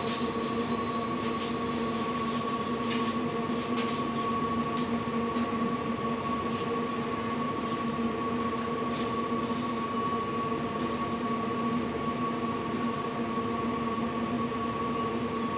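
Steady machine hum holding several fixed tones, with faint scattered clicks over it.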